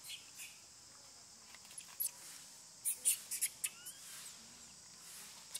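Short, high-pitched squeaks and clicks from baby long-tailed macaques. Most come in a quick cluster around the middle, along with a couple of brief rising chirps.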